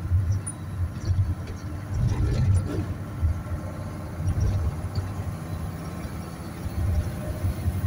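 Car engine and road noise heard from inside the cabin while driving, a low rumble that rises and falls.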